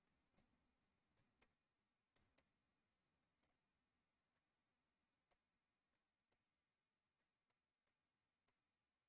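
Computer mouse button clicks, sharp and irregularly spaced, about a dozen over near silence.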